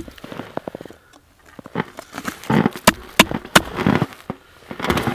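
Ice scoop skimming slush and ice chips out of an ice-fishing hole: short scraping crunches and scattered clicks, with a few sharp knocks close together about three seconds in.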